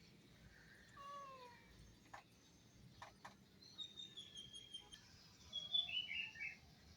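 Kitten giving a short, falling meow about a second in. A few soft clicks follow, then high chirping calls near the end, which are the loudest sounds.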